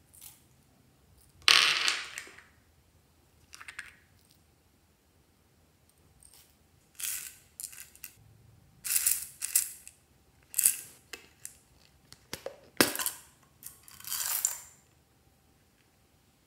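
Hard plastic clicking and clattering as a plastic phone case and small craft pieces are handled over glass dishes of slime. There are a dozen or so short rattling bursts, the loudest about a second and a half in and again toward the end.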